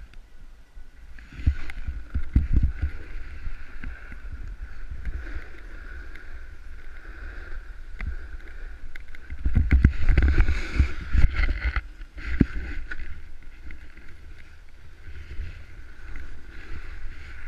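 Snowboard sliding and scraping over snow, with wind rumbling on the body-worn camera microphone; the scraping grows louder about two seconds in and again for a few seconds past the middle.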